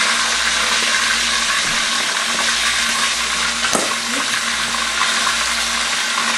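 Pieces of red snapper sizzling in hot oil in a wok, a steady hiss, with a single sharp click near four seconds in as wooden chopsticks turn the pieces against the pan.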